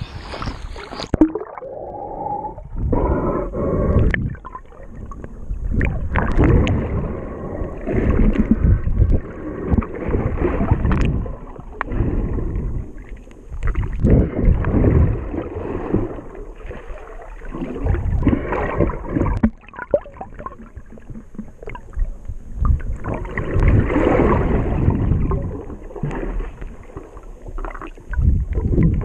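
Water noise at the surface, then about a second in the sound turns muffled as the camera goes under. After that comes muffled underwater water movement and sloshing from the swimmer's strokes, swelling and fading every second or two.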